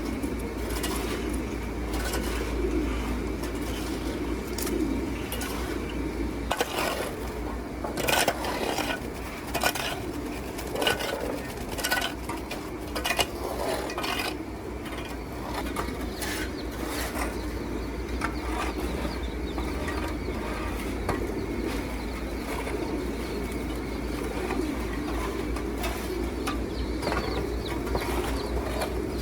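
Many pigeons cooing at once in a continuous low murmur, with scattered sharp clicks and knocks, a cluster of louder ones in the middle.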